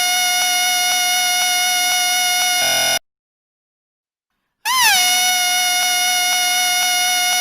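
A whistle blown in one long, steady, shrill note. It cuts off to dead silence about three seconds in and comes back a second and a half later with a quick dip and rise in pitch before settling on the same note.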